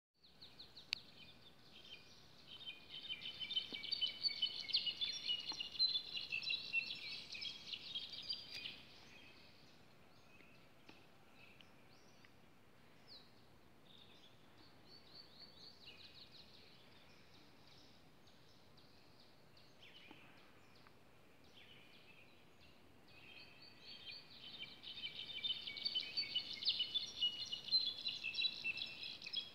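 Jilgueros (brown-backed solitaires) singing: two long phrases of about six seconds each, dense jumbles of high ringing notes. One comes a few seconds in and one near the end, with scattered fainter bird notes in between.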